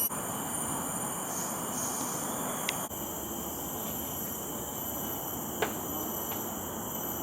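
Steady chorus of insects in tropical forest: several high-pitched drones held at even pitch over a rushing background noise, with two short clicks partway through.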